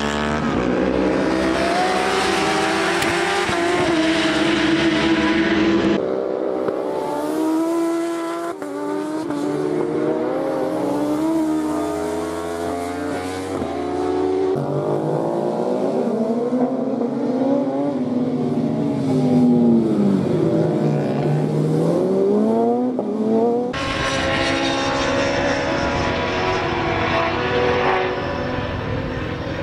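Several racing superbikes' engines screaming past, their pitch climbing and dropping repeatedly as the riders shift gears and brake for corners. The sound changes abruptly twice, at about 6 and 24 seconds in.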